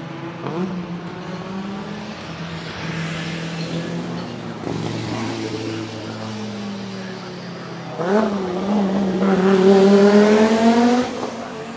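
Audi 90 IMSA GTO race car's turbocharged five-cylinder engine running hard: a steady note for several seconds, then from about eight seconds in the pitch climbs and it gets much louder as it accelerates, before dropping away sharply near the end.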